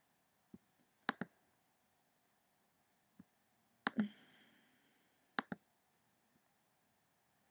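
Computer mouse clicking: three quick pairs of sharp clicks spread over several seconds, with a couple of fainter single clicks between them.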